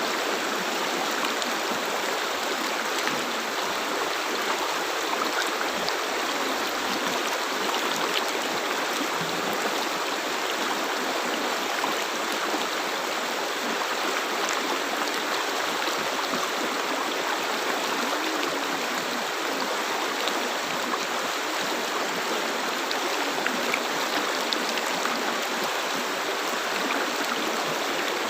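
River water flowing steadily over rocks, a constant rushing with small gurgles.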